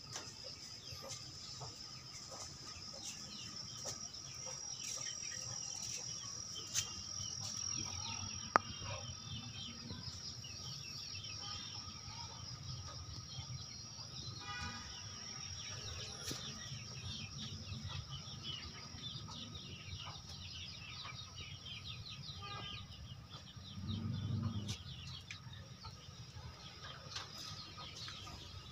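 Kampung chickens clucking now and then with other birds calling, over a steady high-pitched hum. Handheld movement adds a low rumble, with two sharp clicks and a brief low rustle later on.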